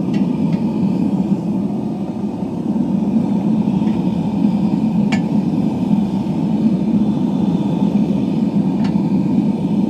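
Gas burner of a homemade forge in furnace mode running steadily at about 14 psi (0.1 MPa), a continuous low rushing sound, with a few faint ticks.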